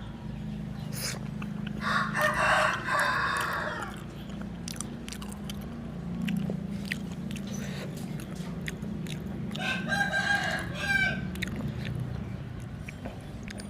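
A rooster crowing twice, a long crow about two seconds in and another near ten seconds in, the first the louder. Close-up chewing clicks in between.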